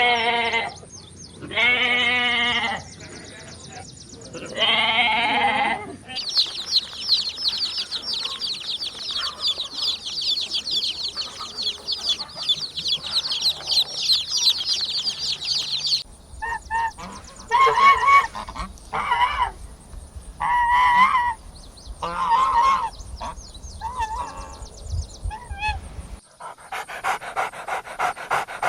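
A sequence of animal calls: three long pitched calls in the first six seconds, then about ten seconds of rapid high chirping from many small voices, then a run of shorter, louder pitched calls. Near the end comes a quick rhythmic panting.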